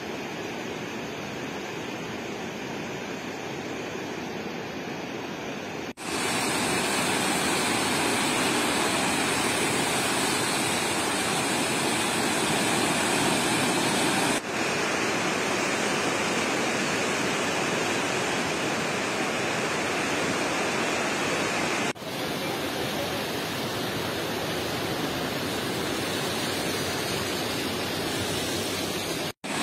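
Steady rushing of the Trishuli River in flood, its flow risen and running high and muddy. The noise jumps louder about six seconds in and changes abruptly at a few later cuts between shots.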